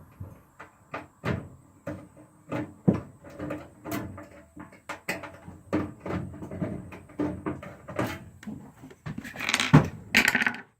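Irregular clicks, knocks and plastic rattles of hands taking a monitoring device out of a burglar alarm control panel and unplugging it. There is a longer scraping rustle near the end.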